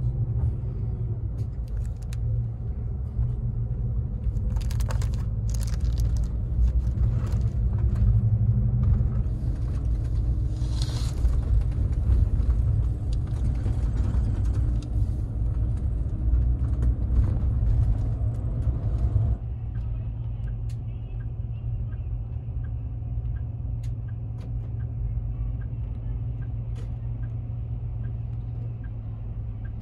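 Cabin of a highway coach on the move: steady low engine and road rumble, with crinkling of a plastic packet in the first several seconds. About two-thirds of the way through the road noise drops away as the bus slows and stands idling at a stop, with a faint regular ticking over the idle.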